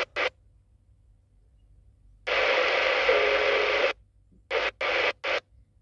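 Intek M-150 Plus CB radio's speaker opening its squelch on incoming transmissions, each burst of static hiss starting and cutting off sharply. A brief burst comes at the start, a longer one of about a second and a half follows about two seconds in, then three short bursts come in quick succession near the end, with the receiver silent between them.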